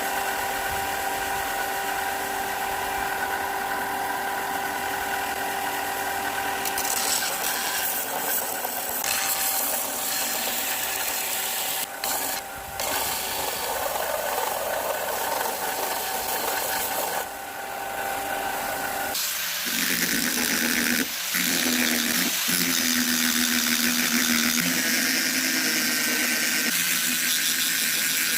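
Small electric power tool running steadily with a motor whine while rust is ground and polished off a hammer head; the tone changes about two-thirds of the way through, with a couple of brief dips.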